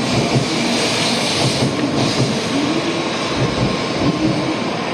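Nozomi Shinkansen train running: a steady rumble with a faint whine that rises and falls.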